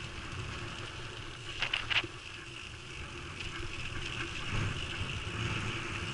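Mountain bike rolling fast along a dirt trail: steady tyre and wind noise with a low rumble, and a couple of short rattles of the bike about two seconds in.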